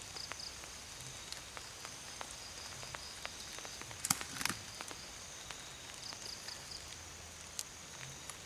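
Night forest ambience of insects trilling steadily, with a short pulsed chirp near the start and again around six seconds. Scattered small clicks run through it, and a few sharp cracks about four seconds in are the loudest sounds.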